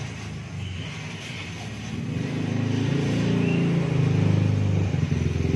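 A motor vehicle engine running, a low hum that grows louder about two seconds in and stays up.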